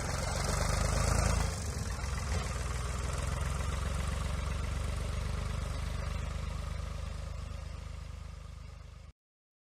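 An engine running steadily at a low, even pitch, loudest about a second in, easing off slightly later, then cut off abruptly near the end.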